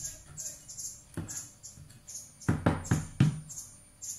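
A handful of sharp knocks, the loudest clustered in the second half, over a high chirping that repeats about three times a second.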